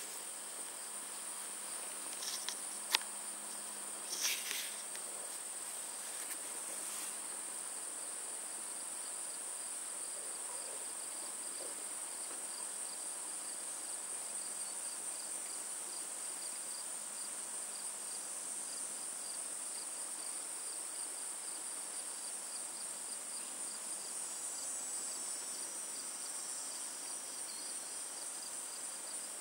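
Insects chirring steadily: one continuous high trill with a faster pulsing note beneath it. A few sharp knocks in the first five seconds, and a second trill joins near the end.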